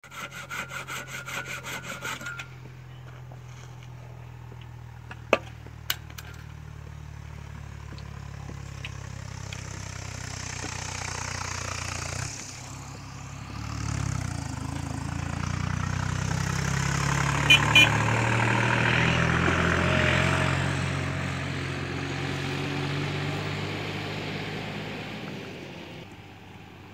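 Quick, regular strokes of a hand saw cutting wood for about two seconds. Then a steady engine hum that swells toward the middle and fades near the end, with two sharp clicks early on.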